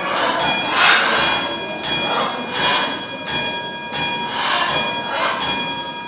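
Blue-and-yellow macaw ringing a small mounted bell by tugging a lever with its beak: eight bright metallic rings at a steady pace of about one every 0.7 seconds, each one sounding briefly before the next.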